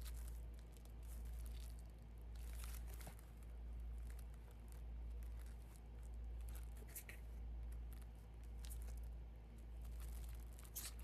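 Paper or plastic packaging crinkling and tearing faintly as a small package is handled and opened, with scattered crackles. Under it a low hum swells and fades about every one and a half seconds.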